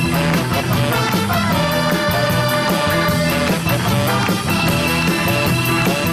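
Upbeat song with a steady beat playing as background music.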